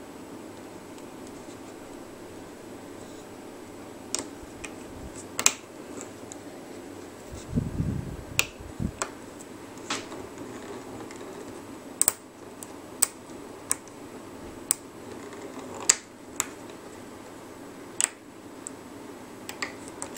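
Sharp, irregular plastic clicks, about a dozen, as a plastic hook knocks against the clear plastic pegs of a rubber-band bracelet loom and works the bands over them. A few dull low thumps about halfway through as the loom is handled.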